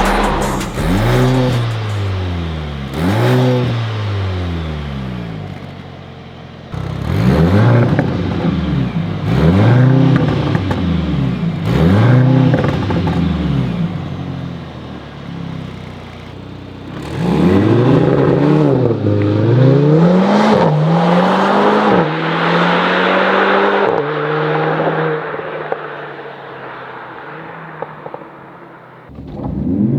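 Mercedes-AMG C63 (W206) 2.0-litre four-cylinder turbo engine revved through an ARMYTRIX valved catback exhaust, in about nine quick rev blips in three groups, with crackles between them. It settles to a steadier lower note for the last few seconds.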